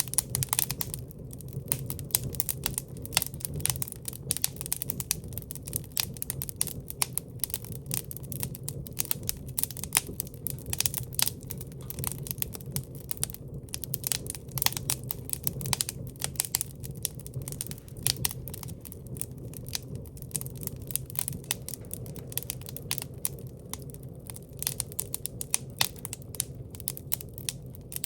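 Wood fire burning in a fireplace: irregular crackles and sharp pops over a steady low rumble.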